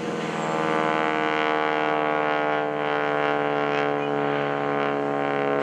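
SNJ-5 Texan's Pratt & Whitney R-1340 radial engine and propeller droning overhead during an aerobatic pass. It gets louder about a second in, and its pitch then falls slowly.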